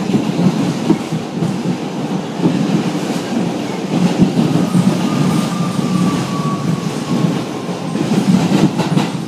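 New York City subway train running, heard from inside the car: a steady rumble and clatter of wheels on the rails, with a faint high whine that slowly falls in pitch through the middle.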